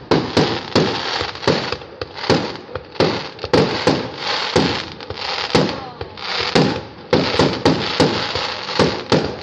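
Aerial fireworks bursting in a rapid barrage, sharp bangs about twice a second over a continuous hiss from the burning and falling stars.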